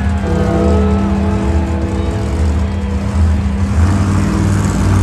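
Monster truck's supercharged V8 engine running at a steady idle, its note shifting about four seconds in.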